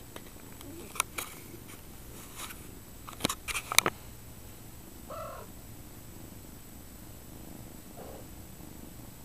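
Steady low purring from a nursing mother cat and her kittens. A few sharp clicks come about one second in and again three to four seconds in, and a short pitched cry is heard about five seconds in.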